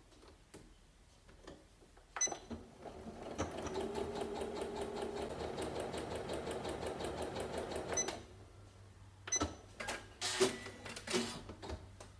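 Janome Memory Craft 9900 computerised sewing machine stitching a zigzag seam through felt: it starts about two seconds in, builds up to a steady, even stitching rhythm and stops after about six seconds. A few sharp clicks and knocks follow.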